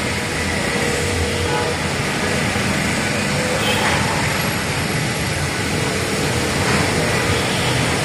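Heavy cyclonic storm wind blowing steadily, an even rushing noise with a low rumble, with faint traffic sounds under it.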